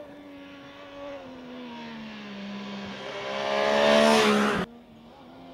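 MV Agusta Stradale 800's three-cylinder engine as the bike comes up and passes at speed, growing louder to a peak about four seconds in. The sound then cuts off suddenly, and a quieter, steady engine note carries on.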